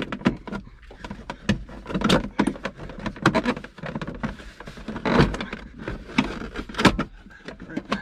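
C5 Corvette's plastic seat-belt trim panel being pulled and worked free by hand: a string of irregular plastic clicks, knocks and scrapes.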